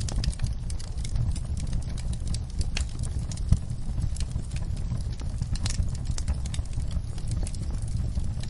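Wood fire crackling and popping in a fireplace, with irregular sharp crackles over a steady low rumble and one louder pop about three and a half seconds in.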